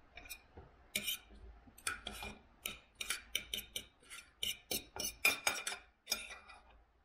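Knife and fork scraping and clinking against a plate while cutting food: a quick, uneven string of clicks and short scrapes that stops shortly before the end.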